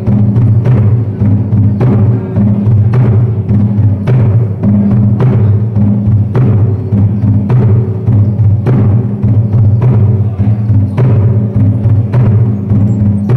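Folk dance music led by a drum beating a steady rhythm, a strong stroke about every second with lighter strokes between, over a low sustained tone.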